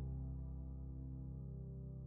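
Background music: a held chord of sustained instrument tones, slowly fading.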